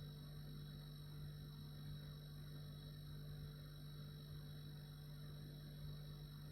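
Refrigerator running with a steady, even low hum and faint high-pitched tones above it, unchanging throughout.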